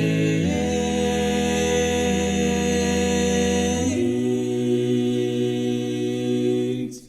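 Multi-part vocal harmony of a bluegrass gospel group holding the closing chords of a song, moving to a new chord about half a second in and again about four seconds in, then ending abruptly near the end.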